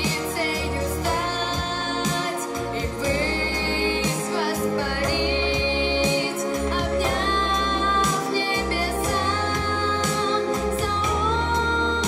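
A young girl singing a slow song into a microphone, holding long notes and gliding between them, over instrumental accompaniment with a full bass.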